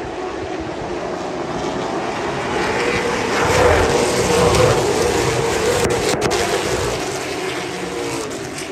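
Late model stock car V8 racing engines running hard at speed, a steady engine note that swells about three and a half seconds in and eases off toward the end.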